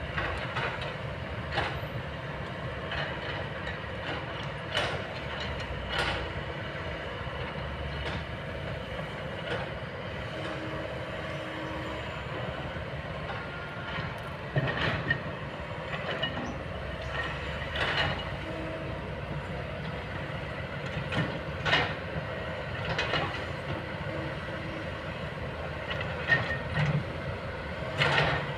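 Kobelco long-boom excavator's diesel engine running steadily, with irregular sharp knocks and clanks from the machine at work.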